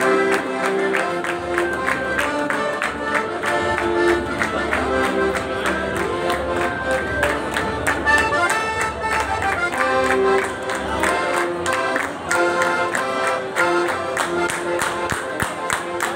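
Circassian dance music led by an accordion, over a fast, steady beat of hand claps.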